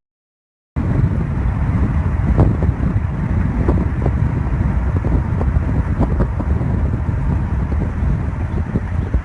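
Wind buffeting the microphone: a loud, steady low rumble with scattered crackles, beginning abruptly after a moment of dead silence.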